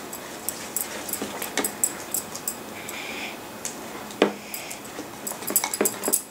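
Plastic spoon stirring thick glue slime in a ceramic bowl, with quick irregular clicks and taps as it scrapes and knocks against the bowl's sides.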